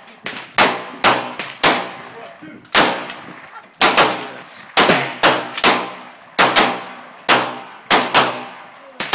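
Rapid rifle gunfire: about twenty shots in nine seconds, unevenly spaced and some nearly on top of one another, each with a short ringing tail.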